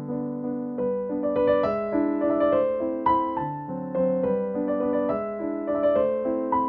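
Background music: a piano tune whose notes are struck one after another and left to fade.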